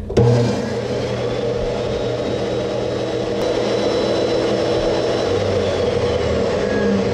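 DeWalt portable table saw starting up just after the start and running steadily as a strip of high-density plastic is fed across the blade to plow out a groove.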